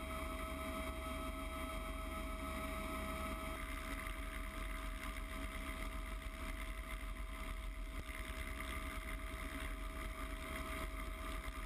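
Helicopter in flight, heard through a camera mounted on the airframe: steady rotor and engine noise with a steady whine above a deep rumble.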